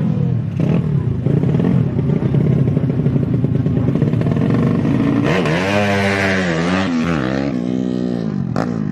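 Small underbone motorcycle engines running, one revving up hard and back down again about five seconds in, its pitch rising then falling.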